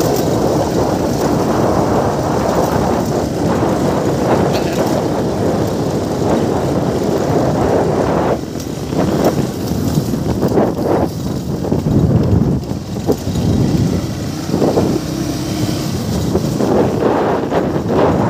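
Vehicle ride along a rough dirt track: steady rumble and wind buffeting on the microphone, easing briefly about 8 seconds in.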